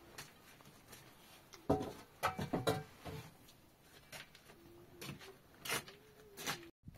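Irregular knocks and clatter, with a bunched series of strikes about two seconds in, and some rubbing, as of objects being handled and set down.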